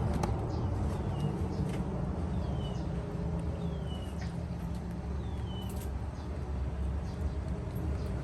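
Four or so short, high chirps, each falling in pitch, spaced a second or two apart over a steady low rumble.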